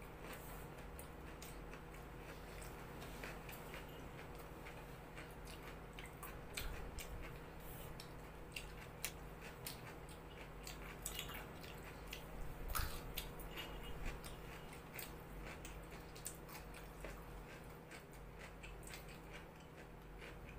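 Faint eating sounds of two people eating by hand: scattered small clicks and smacks of chewing, and of fingers tearing naan and scooping curry from clay plates, over a steady low hum.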